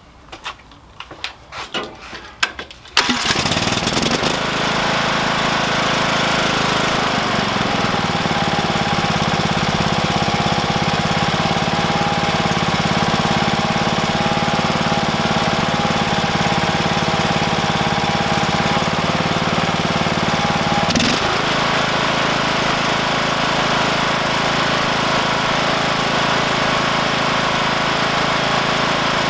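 Briggs & Stratton riding-mower engine starting about three seconds in, then running at a steady, even speed on its freshly cleaned Nikki carburetor, without hunting up and down.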